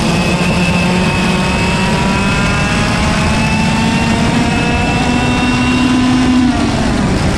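IAME KA100 single-speed 100cc two-stroke kart engine at full throttle out of a corner and down the straight, its pitch climbing steadily, then dropping as the driver lifts off about six and a half seconds in.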